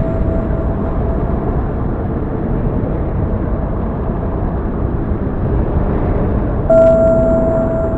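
Steady, deep rushing noise like a rainstorm soundtrack, with a held ringing tone that fades out about a second and a half in. Near the end a new, louder ringing tone is struck and holds.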